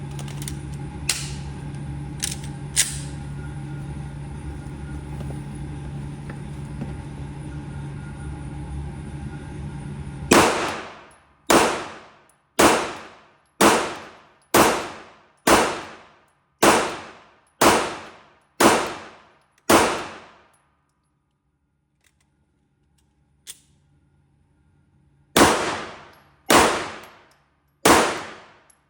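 9mm pistol fired in slow, steady strings: ten shots about one a second, a pause of several seconds, then three more near the end. Before the first shot there is a steady low hum with a few small clicks.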